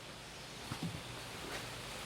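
Quiet background with a few soft knocks and rustles, about two-thirds of a second in and again near the middle: light handling noise.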